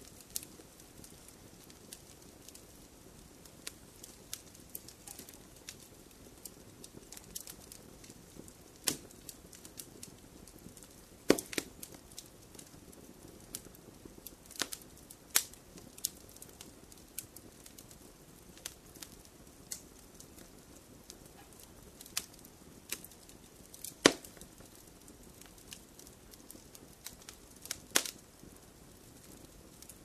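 Fireplace fire crackling: irregular sharp pops and snaps over a soft, low hiss, with a handful of louder pops scattered through.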